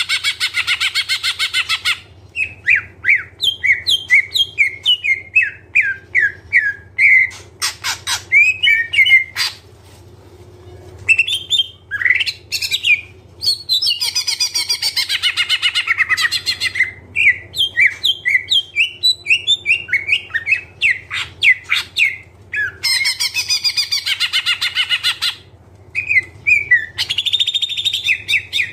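Green leafbird (cucak ijo) singing hard in a long, varied run of rapid chirps and whistled notes, broken three times by harsh buzzy chattering bursts; the song is packed with mimicked phrases ("full isian"). A faint steady low hum lies underneath.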